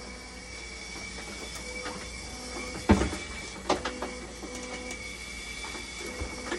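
Steady hum with a thin high tone from running dialysis machines, broken by a loud knock about three seconds in and a few lighter clacks just after, as the machine's insides are handled.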